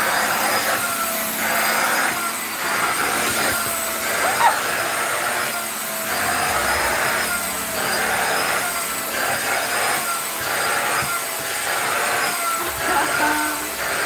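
Cosy 2-in-1 handheld vacuum cleaner running with a steady high motor whine as its nozzle is stroked back and forth over a fabric sofa cushion. The sound swells and fades about once a second with the strokes.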